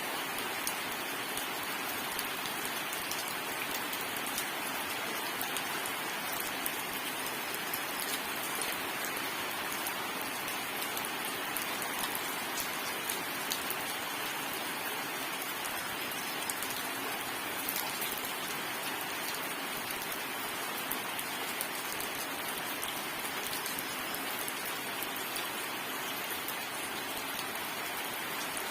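Steady rain falling, a dense even hiss with many small drop ticks and no thunder.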